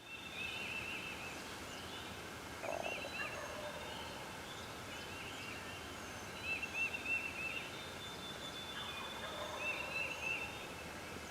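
Wild turkey gobbling a few times, about three seconds in and again later, over a chorus of songbirds repeating quick chirping phrases.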